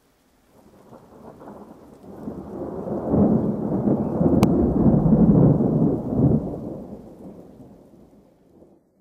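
Rolling rumble of thunder that swells over a few seconds and dies away, with one brief sharp tick at its peak.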